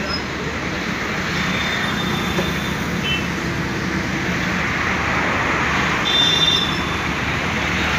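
Road traffic on a city street: vehicles going by, with the noise swelling as a car passes close about six seconds in. A few brief high-pitched tones sound over it, around a second or two in and again as the car passes.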